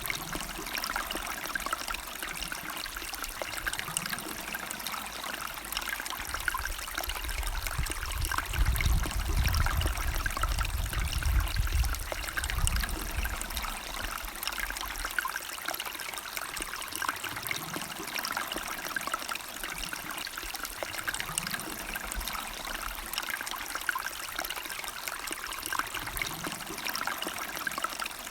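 River water flowing and trickling steadily. A low rumble swells for a few seconds about eight seconds in, then dies away.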